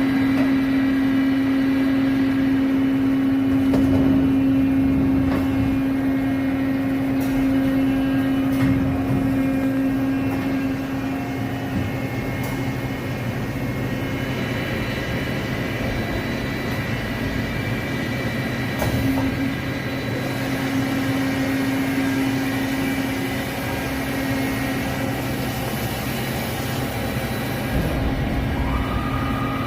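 Five-face CNC machining center running, a steady mechanical hum with a constant low tone and a few light clicks. Near the end a higher steady whine comes in.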